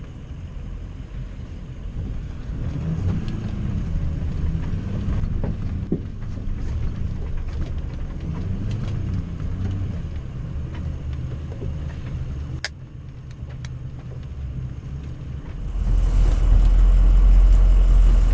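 Full-size truck engine running at low speed off-road, its low drone rising and falling with the throttle, with a few sharp clicks or knocks about three-quarters of the way through. A much louder, deeper rumble takes over near the end.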